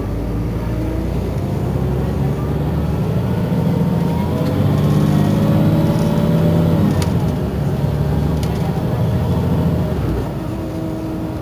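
Iveco Crossway city bus's engine running while the bus stands at a stop. Its note rises slowly from about four seconds in and falls back sharply a few seconds later, then runs steady again.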